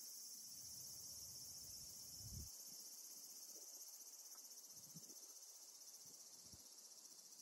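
Faint, steady high-pitched trilling of insects. A soft low rumble in the first couple of seconds and a few faint low thumps later.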